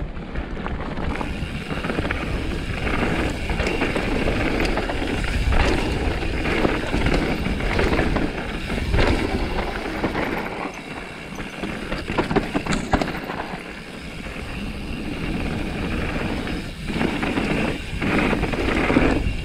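Mountain bike riding fast down a rough, rocky trail: steady tyre rumble over stones, with frequent knocks and rattles from the bike over the rocks.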